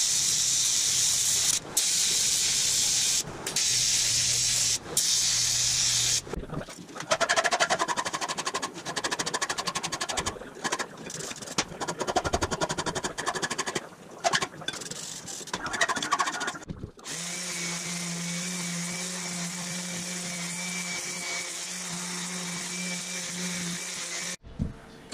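AC TIG welding arc on aluminum hissing and buzzing in several stretches broken by short gaps, then a hand file scraping rapidly back and forth across the aluminum weld, and then a small electric power tool running steadily for several seconds before stopping near the end.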